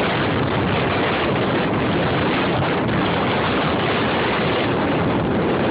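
Steady loud rush of strong wind buffeting the microphone.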